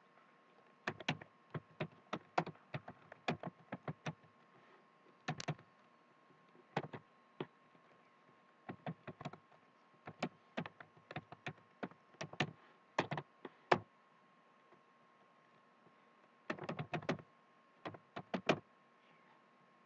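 Typing on a computer keyboard: quick runs of key clicks broken by short pauses, with a gap of about three seconds near the end before a few last runs.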